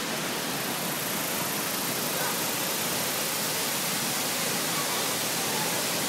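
Steady, even rush of falling water from a waterfall, a dense hiss spread across all pitches without a break.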